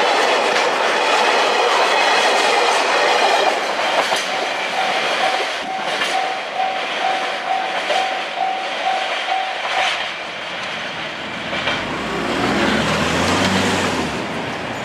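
Freight train of tank wagons rolling over the level crossing, with wheels clicking over the rail joints. After about four seconds the train noise drops and a Japanese level-crossing alarm is heard, one bell tone repeating about twice a second; it stops at about ten seconds. A low hum comes in near the end.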